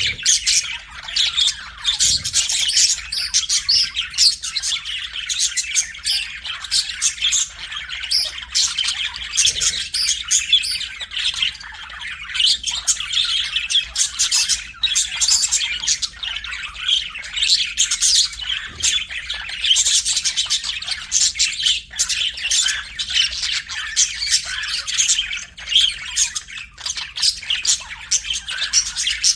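Budgerigars chirping and squawking continuously, many quick overlapping calls and warbles.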